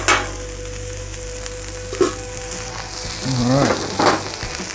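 Beef smash burger patties and onions sizzling steadily on a flat-top gas griddle. A metal spatula clacks against the griddle plate at the start and again about 2 s in, and a sharper clink comes about 4 s in as a stainless steel dome lid is set down over the onions.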